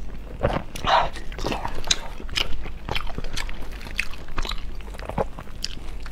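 Close-miked eating of soft braised meat: a string of irregular biting and chewing clicks and mouth smacks, with a louder moment about a second in.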